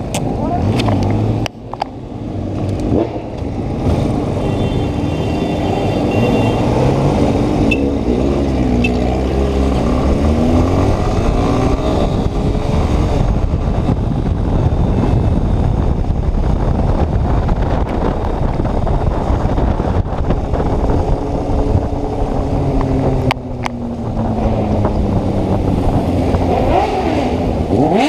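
Yamaha Ténéré 250's single-cylinder engine running on the move. Its pitch rises and falls several times as it revs up and drops back, with a steady rush of wind noise underneath.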